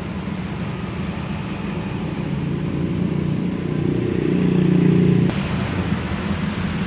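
Toyota Soluna's four-cylinder petrol engine idling, then revved up gradually over a few seconds and dropped back to idle suddenly about five seconds in.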